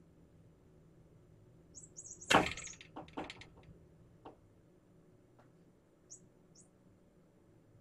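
Kittens pouncing and scrambling on cardboard scratcher and cat-cave toys: one sudden loud thump about two and a half seconds in, then a few lighter knocks and rustles over the next couple of seconds. A few faint, short, high chirps come before and after the thump.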